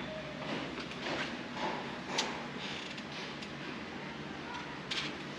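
Quiet outdoor ambience: a steady low background hush with a few faint, short clicks scattered through it, the clearest about two seconds in and again near the end.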